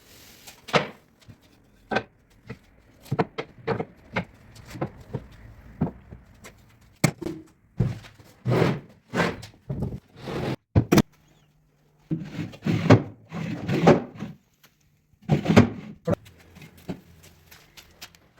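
A series of irregular wooden knocks and thuds as pieces of a solid-wood desk are handled and fitted, with a brief low hum about twelve seconds in.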